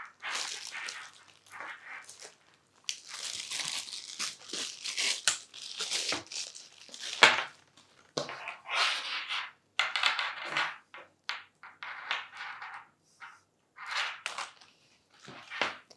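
Plastic packaging crinkling and rustling in irregular bursts as the keyboard and its cables are unwrapped.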